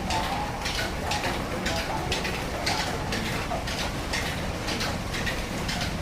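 Mustard oil mill machinery running with a steady low rumble and a sharp hissing stroke repeating roughly twice a second.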